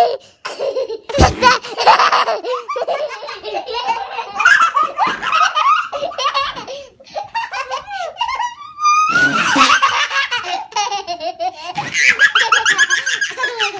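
Young children laughing hard, with giggles and high squeals coming one after another, and a low thump about a second in.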